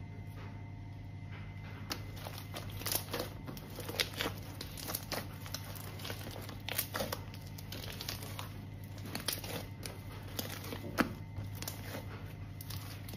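Green slime being pulled apart and kneaded by hand, giving irregular sticky clicks and crackles that start about two seconds in, over a low steady hum.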